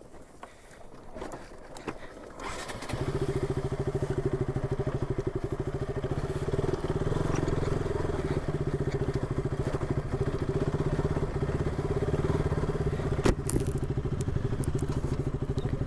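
Motorcycle engine catching about three seconds in and then idling steadily with a fast, even pulse. A single sharp knock sounds near the end.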